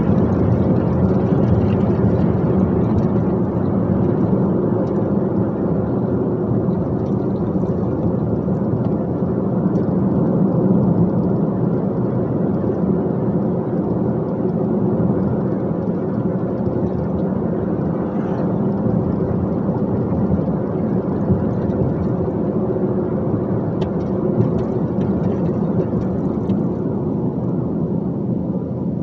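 Dump truck engine running at a steady pitch under way, with road noise: an even low drone that eases off slightly near the end.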